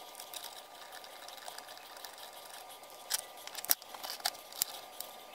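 Sharp clicks and clinks of painted cast-iron grinder parts being handled, a cluster of them about three to five seconds in, over a faint steady hum.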